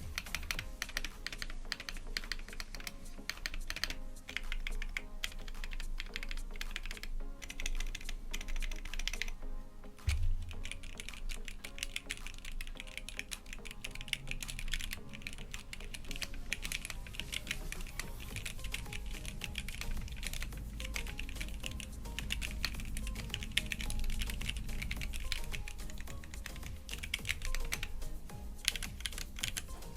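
Mechanical keyboard with Gateron Ink Red v2 linear switches being typed on fast, a dense run of keystroke clacks that pauses briefly about ten seconds in. Background music with a steady bass plays underneath.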